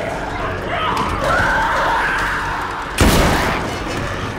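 Zombies shrieking and snarling, then a single loud gunshot about three seconds in that rings out briefly.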